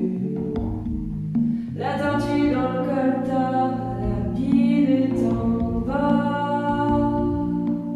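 A woman singing into a handheld microphone: short broken phrases at first, then long held notes from about two seconds in, over a steady low drone.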